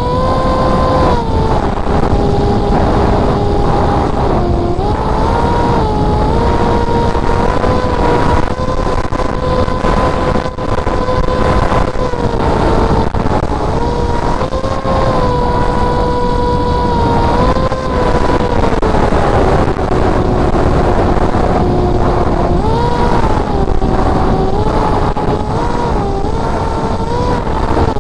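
Spec Wing flying wing's motor and propeller whining in flight, the pitch stepping up and down every few seconds as the throttle changes, over steady wind rush on the onboard camera's microphone.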